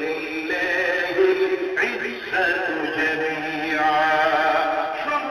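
A man's voice singing a slow melody in long, wavering held notes.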